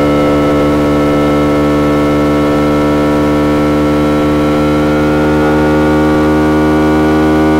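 KTM Duke 200's single-cylinder engine running through an SC Project SC1-R exhaust with a powerbomb header, steady at first, then with its revs climbing slowly over the last few seconds.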